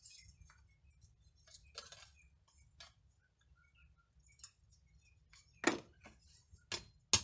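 Metal hand tools clinking against steel: faint clicks as pliers work a hot steel strip, then a few sharper clinks near the end as the pliers are set down and a hammer is picked up.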